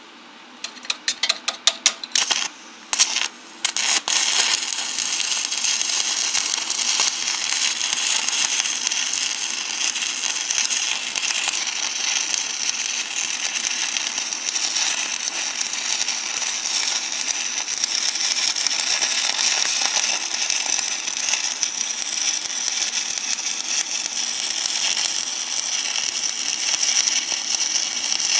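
Arc welding: the electrode gives several short stuttering crackles over the first few seconds as the arc is struck and breaks off, then the arc holds and burns with a steady, loud crackling hiss.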